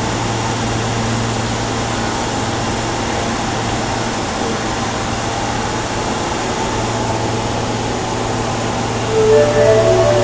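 Steady hum and rush of a subway train standing at the platform. About nine seconds in, a louder sound with several held pitches, stepping from one to the next, starts up over it.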